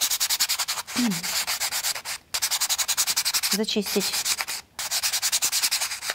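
A sanding sponge is rubbed quickly back and forth over a plywood model part, about ten strokes a second, with short pauses about two and four and a half seconds in. The part is being sanded smooth so the gear on it will turn freely.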